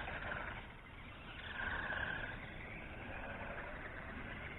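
Electric motor of an HBX Hailstorm 1:18 scale 4WD RC buggy whining faintly as it drives, swelling and fading twice with the throttle.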